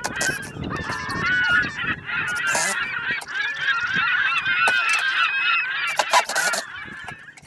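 A flock of geese honking, many calls overlapping, dying away near the end, with a couple of brief sharp noises among them.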